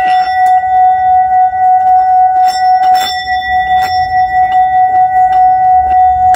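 A sustained bell-like ringing: one steady tone with several higher overtones, wavering slightly in loudness, with irregular light clicks over it.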